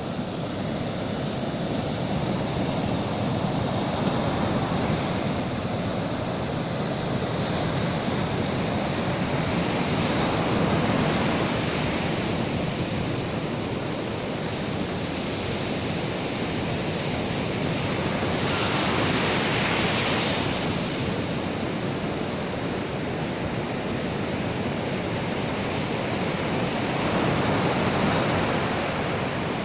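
Baltic Sea waves breaking on the shore: a steady wash of surf that swells as a bigger wave comes in about every nine seconds.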